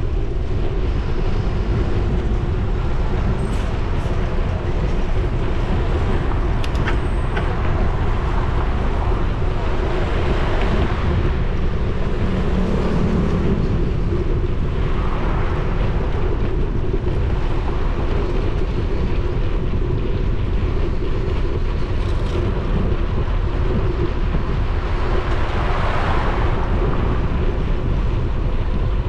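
Wind buffeting the microphone of an action camera on a moving bicycle: a steady low rumble. Road traffic swells up and fades a few times.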